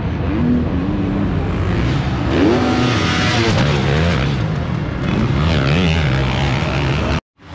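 Several motocross bikes racing past, their engines revving up and down in overlapping rising and falling pitches. The sound cuts out abruptly just before the end.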